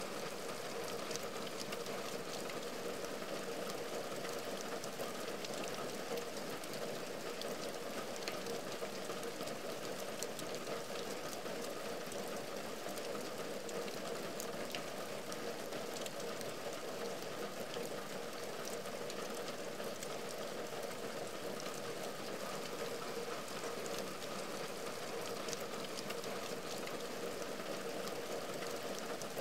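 Steady rain on a window and its wooden ledge: an even hiss with scattered sharper drop ticks, unchanging throughout.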